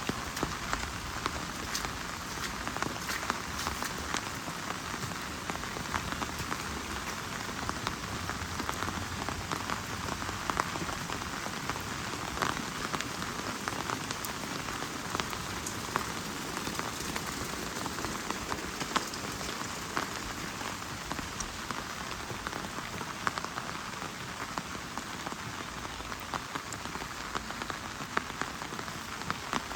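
Heavy rain falling steadily, with frequent sharp ticks of individual drops.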